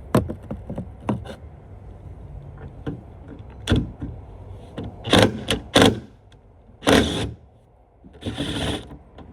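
Hand work on truck hood hardware: sharp clicks of a wiring connector and tools near the start, then louder knocks and short rattling bursts of hand tools on the hood hinge bolts from about four seconds in.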